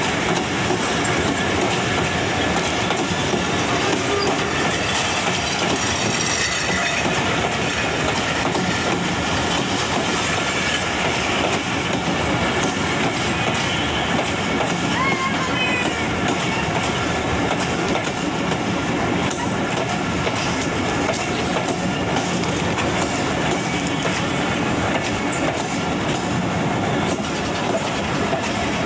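Intercity passenger train coaches rolling past at close range: a steady rumble and clatter of steel wheels on the rails.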